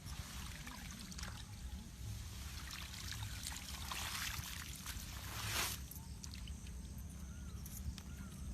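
Water trickling and splashing, swelling to a louder rush about five and a half seconds in, then falling back.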